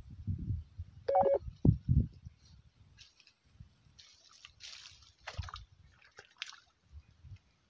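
Small splashes and plops of a fishing lure being twitched across the surface of a creek, with a few low thumps and a brief squeak about a second in.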